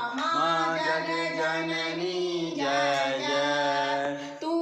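Devotional aarti singing: a voice holds long, drawn-out notes, changing pitch a few times.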